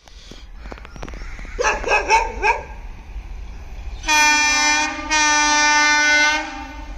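A dog barks four times in quick succession. Then the horn of an Indian Railways WAG5 electric locomotive sounds two long steady blasts, the second a little longer, as the train approaches.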